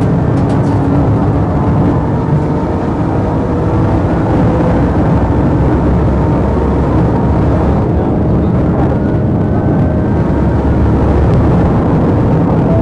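Police car driving fast in a pursuit: heavy, steady engine and road rumble, with a siren faintly wailing up and down behind it.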